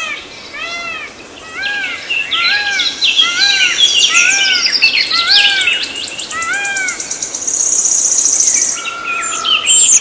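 Several birds calling at once: one repeats a rise-and-fall call about two or three times a second, under quick overlapping chirps and a high buzzy trill.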